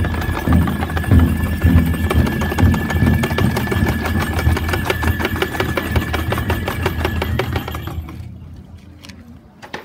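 Massed shishi lion-dance heads clacking their wooden jaws in a rapid, continuous clatter, with a steady high note held over it and heavy low rumbling beneath. The clatter dies down about eight seconds in.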